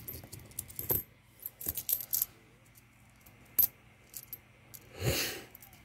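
Pennies clinking as they are handled and sorted by hand: a scattering of short, sharp metallic clicks. A brief soft rush of noise about five seconds in.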